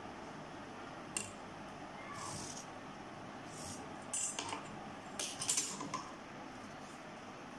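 Light clicks and clatter of a steel ruler and a marker pen being handled and set down on a tabletop, the loudest clatter a little after five seconds in.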